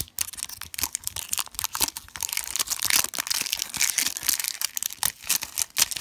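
Thin plastic wrapping of an LOL Surprise toy ball being peeled and crumpled by hand. It crackles and tears in a dense, irregular run of crinkles.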